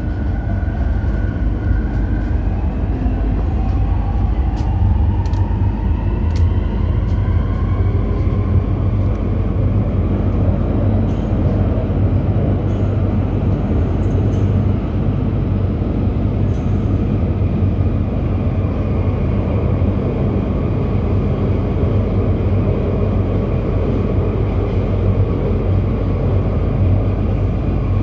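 MTR South Island Line S-Train running, heard from on board: a steady rumble of wheels on rail, with the traction motors' whine rising in pitch over the first ten seconds or so as the train gathers speed, then holding steady. A few sharp clicks come in the first several seconds.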